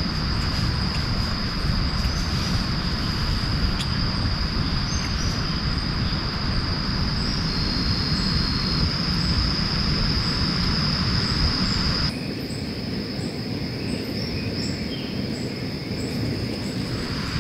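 Insects droning steadily on one high pitch, with faint short chirps above, over a steady rushing noise. About twelve seconds in the low rushing drops suddenly while the insect drone carries on.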